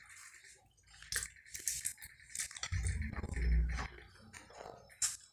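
Wet chewing and sucking sounds of a person eating chicken feet by hand, with scattered small lip smacks and clicks.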